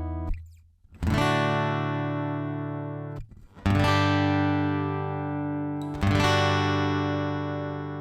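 Applause by Ovation AE44 II acoustic-electric guitar heard through its piezo pickup: three chords strummed and left to ring, each fading before it is damped and the next is struck.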